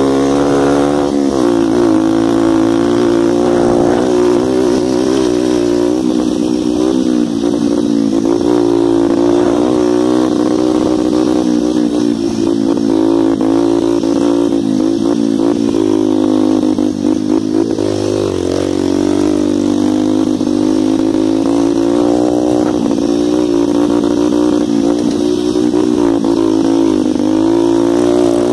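125 cc dirt bike engine running under load while riding over rough field ground, the revs rising and falling continuously with the throttle. It is heard close up from the handlebars.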